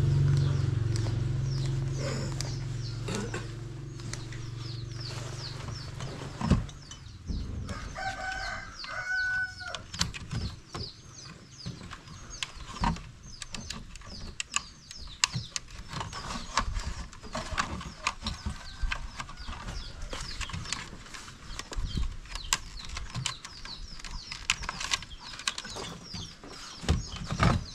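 A rooster crows once, about eight seconds in, over small birds chirping, with frequent clicks and knocks as a wifi router and its cables are handled. A low hum fades out over the first six seconds.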